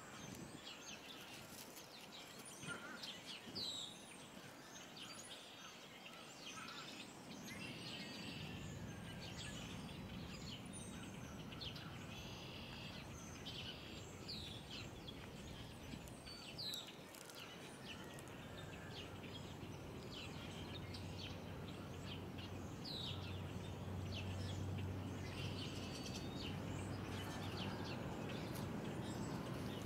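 Outdoor ambience with small birds chirping now and then; a steady low hum comes in about two-thirds of the way through and grows louder.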